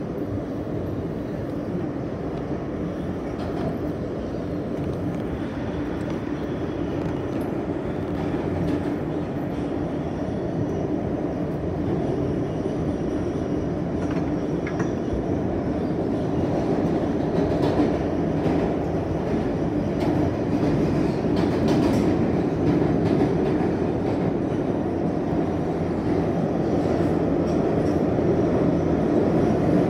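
R160 subway car running through a tunnel, heard from inside the car: a steady rumble of wheels on rail with a few faint clicks, slowly growing louder.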